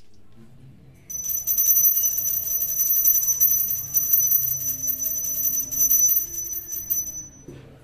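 Small brass puja hand bell rung rapidly and steadily, a high, bright ringing that starts about a second in and stops shortly before the end.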